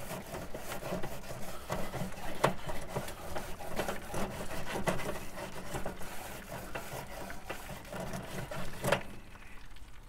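Grill brush scrubbing back and forth over the cooking grate of a Weber Summit Charcoal Grill: a continuous rapid scraping rasp. It stops with a sharp knock near the end.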